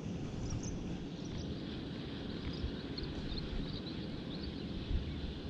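Outdoor pond-side ambience: wind rumbling on the microphone, with scattered faint high-pitched chirping.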